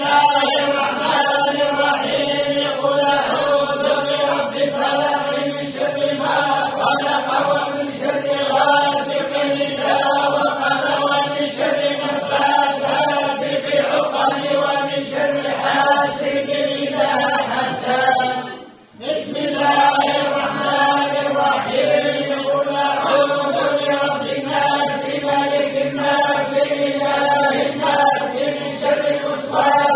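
A group of men chanting together in unison on a held, droning pitch, breaking off briefly about two-thirds of the way through and then resuming.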